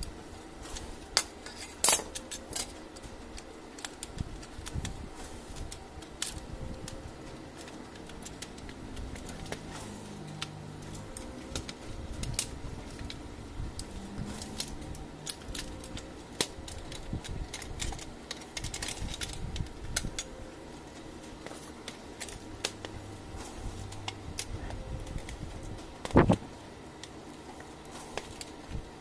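Plastic and sheet-metal parts of an HP LaserJet 4515/M4555 fuser assembly being handled and fitted back together: scattered clicks and small knocks, with a louder knock about two seconds in and another near the end.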